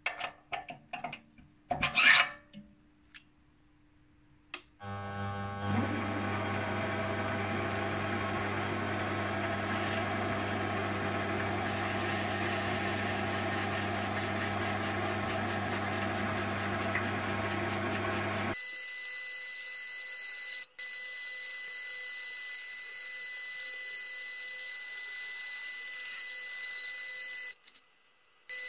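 Sharp clicks of a drill chuck key working the chuck's gear teeth. Then a Sieg C3 mini lathe starts and runs steadily while a cutting tool turns brass. About two-thirds of the way through, the machining sound turns to a higher-pitched hiss with steady whistling tones, from footage sped up five times, and it cuts out briefly near the end.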